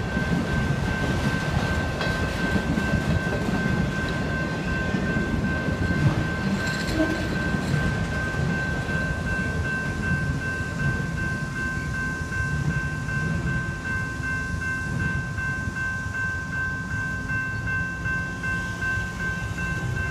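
Freight train of autorack cars rolling past with a low rumble, while the crossing's General Signals electronic bells ring steadily.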